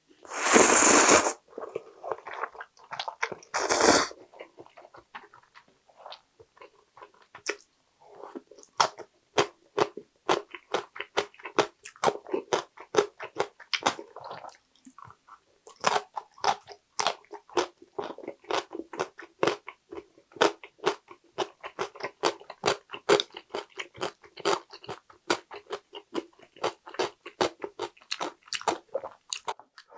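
Close-miked mouth sounds: loud slurping of ramen noodles twice in the first four seconds, then steady crunching as cucumber kimchi is chewed, a few crunches a second.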